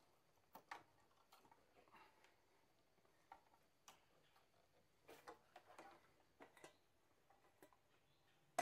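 Faint, irregular small clicks, taps and rattles of hands unhooking a car's throttle cable and its return spring at the throttle body, with one sharper click at the very end.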